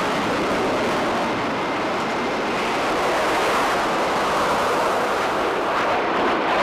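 Jet engine noise of a twin-engine MiG-29-family fighter flying an aerobatic display, a steady rough rushing sound with no breaks.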